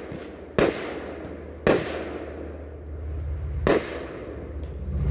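Consumer firework cake (Top Gun 'Brave and Strong', a 38-shot cake) firing: three sharp bangs of shells bursting, spaced one to two seconds apart, with a low rumble between them that builds near the end.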